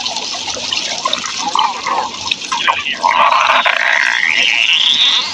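Rushing, watery noise with scattered gurgles. About three seconds in, a tone begins that rises steadily in pitch until the end.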